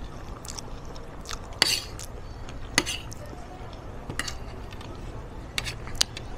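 Metal fork and spoon clinking and scraping against a ceramic plate during a meal: about six sharp clinks, the loudest about one and a half seconds in.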